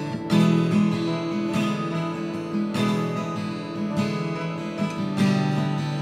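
Background music: an acoustic guitar strumming chords, with a new strum about every second and a bit.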